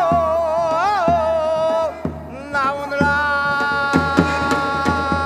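Male pansori-style singing with wide vibrato and swooping pitch, ending on a long held note, accompanied by janggu and buk drum strokes.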